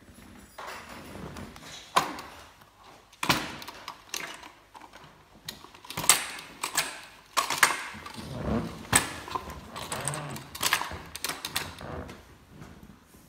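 Plastic manual meat grinder being handled and set down: an irregular run of sharp plastic clicks and knocks against the board and table, the loudest about two, six, seven and a half and nine seconds in.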